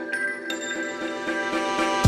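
Background music with held, sustained notes; a new note comes in about half a second in.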